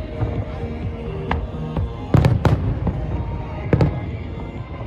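Aerial fireworks going off in a quick series of sharp bangs, the loudest two a little over two seconds in, with music playing underneath.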